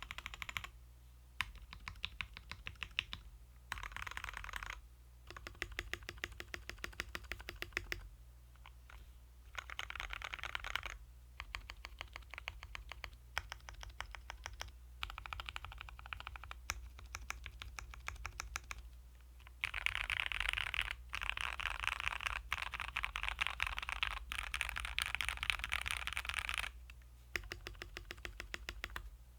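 Typing on a custom mechanical keyboard with lubed Gateron KS-3 Black linear switches and PBT XDA keycaps: fast runs of keystrokes in bursts of a few seconds with short pauses, the fastest and densest typing in the second half. A steady low hum sits underneath.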